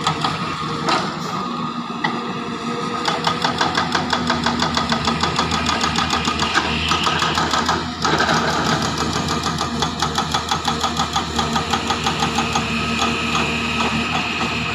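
Diesel engine of a Zoomlion hydraulic excavator running under load at close range, a steady hum with a fast pulsing about four times a second. The sound breaks off briefly about eight seconds in.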